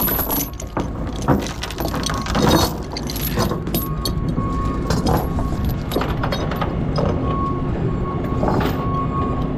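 Steel tie-down chains clinking and rattling as they are handled on a wooden trailer deck, in a run of irregular clinks, over the steady low running of an idling engine.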